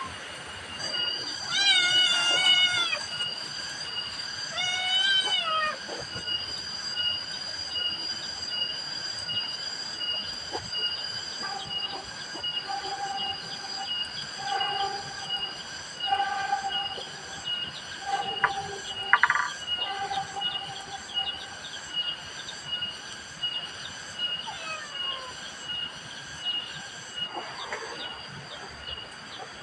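Forest insects and animals: a steady high whine with a regular chirp repeating through it, two drawn-out falling calls near the start, and a run of shorter calls in the middle.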